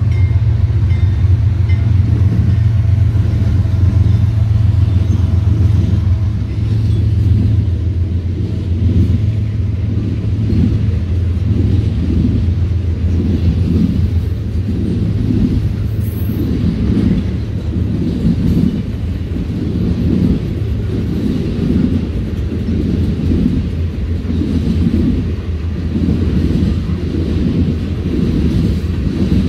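A freight train passing close by on jointed or welded rail. In the first few seconds a GE Dash-9 diesel locomotive rumbles past. The steady rumble of freight cars rolling by follows, swelling and fading in an even rhythm a little more than once a second.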